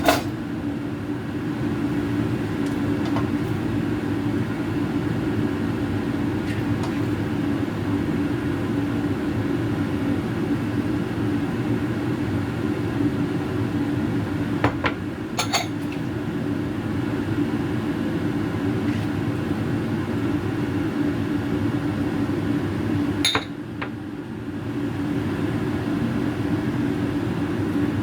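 A steady low mechanical hum runs throughout, with a few sharp clinks of cookware. The hum drops briefly and comes back near the end.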